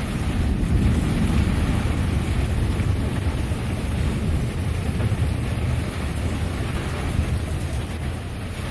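Thunderstorm wind buffeting the microphone in a steady low rumble, with an even hiss of rain over it.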